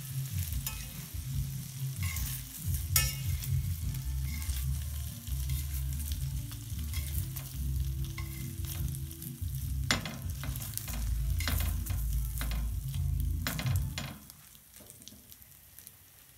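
Frikadellen being turned over one by one in a stainless steel frying pan with a knife and fingers: clicks and scrapes of the knife on the pan and knocks of handling, over a faint sizzle of the patties frying in a little oil. About 14 seconds in the turning stops and only the soft sizzle is left.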